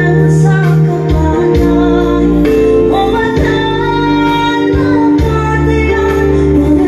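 A woman singing a song into a microphone over Yamaha PSR-S975 keyboard accompaniment, with held chords and a bass line under her voice.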